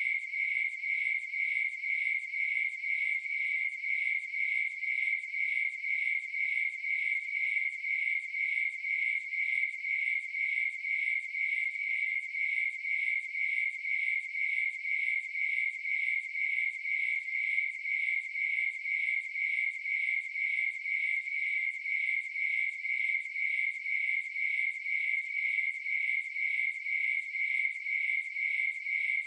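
Crickets chirping in a steady, even rhythm, each chirp on the same high pitch.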